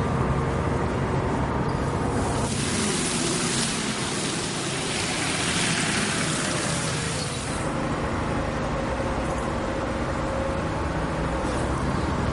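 City bus engine running steadily with a low rumble, heard inside the bus. From about two seconds in, a loud hiss of spraying water on the wet street takes over for around five seconds, then cuts off and the bus rumble returns.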